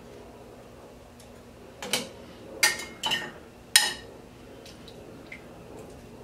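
Metal kitchen tongs clinking against a plate and a cast-iron pot while beef short ribs are lifted and set into the braising liquid: four sharp clinks between about two and four seconds in, two of them ringing briefly.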